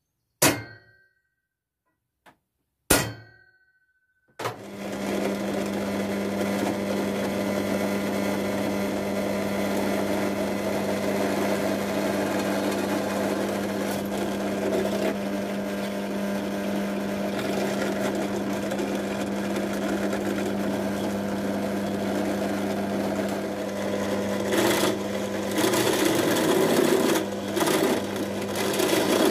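Two sharp clicks, then a benchtop drill press motor starts about four seconds in and runs steadily with a hum. Near the end the stepped drill bit starts cutting into the metal pipe, and the sound turns rough and uneven.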